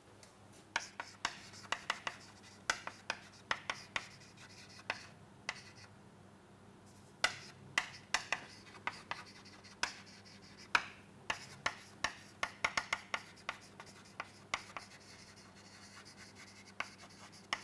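Chalk writing on a chalkboard: quick runs of short taps and scratches as the chalk strikes and drags across the board, with brief pauses between words.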